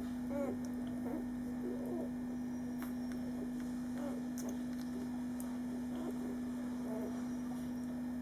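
Five-day-old German Shorthaired Pointer puppies making small squeaks and grunts, thickest in the first two seconds and scattered after, over a steady low electrical hum.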